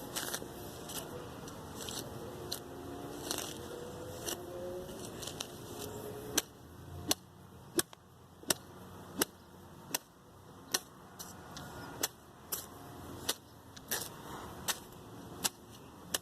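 A large piece of scrap metal used as a makeshift chopper, whacking down weeds: rustling and scraping at first, then from about six seconds in a steady run of sharp strikes, about three every two seconds.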